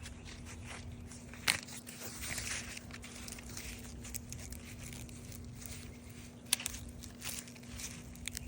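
Dry sweet-corn husks and leaves crackling and tearing as the husk of an ear is pulled back, with two sharp snaps about a second and a half in and again near the end.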